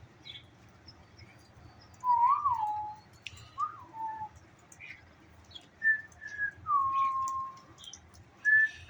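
A series of clear whistled notes, sliding up and down and settling into a longer held tone, over faint short bird chirps.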